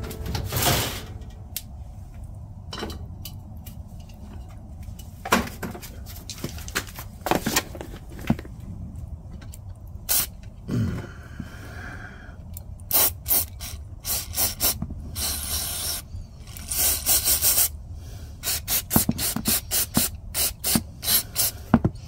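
Aerosol carburetor cleaner sprayed through a straw into a portable generator's carburetor with the float bowl removed, flushing gunk out of a dirty carb. It comes as many short hissing squirts and a couple of longer blasts in the second half, after scattered clicks and knocks of handling.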